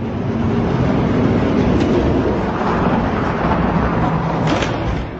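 Two die-cast toy monster trucks rolling fast down a long orange plastic Hot Wheels track, a steady rumbling clatter of their wheels on the plastic with a couple of light ticks over the track joints.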